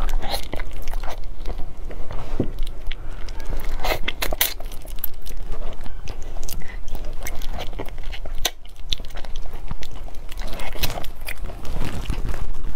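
Someone biting and chewing soft durian flesh close to a lapel microphone, with many irregular wet mouth clicks and smacks.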